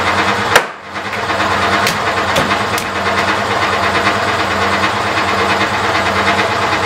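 Vacuum pug mill running with a steady motor hum. About half a second in, a heavy thud as a lump of clay is slammed down, then a few lighter slaps as it is patted into shape.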